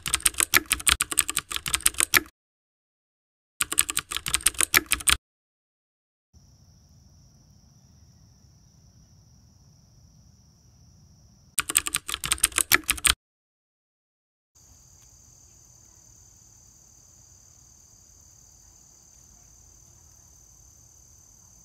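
Three quick bursts of rapid computer-keyboard typing clicks, the loudest sounds here, alternating with faint garden ambience in which insects keep up a steady high-pitched drone.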